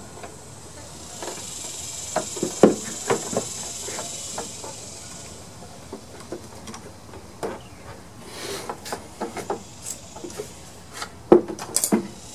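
Scattered small clicks and knocks of hose-clamp pliers, a spring clamp and a rubber fuel hose being worked onto a lawn mower's fuel shutoff valve, with two sharper knocks, one about three seconds in and one near the end.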